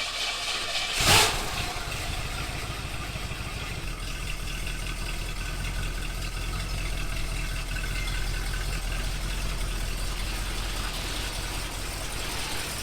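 A short loud thump about a second in, then a car engine idling steadily.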